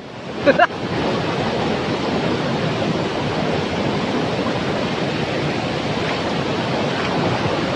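Brown, swollen river rushing over rapids and boulders: a steady, even roar of whitewater.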